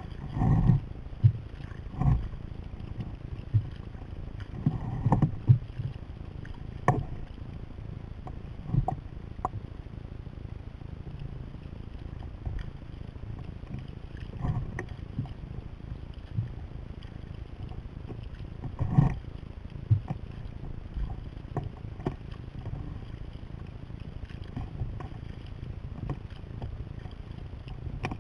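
Sea kayak under paddle on open water: a steady rush of water and wind noise, broken by irregular splashes and knocks from paddle strokes and water slapping the hull.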